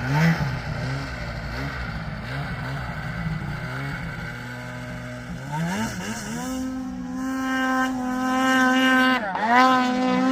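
Snowmobile engine running at low revs, then revving up about six seconds in and holding a steady high-rpm whine, with a brief drop in revs and recovery near the end.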